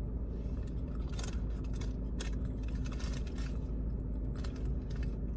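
Steady low hum with a faint held tone under scattered small clicks, crinkles and scrapes of things being handled.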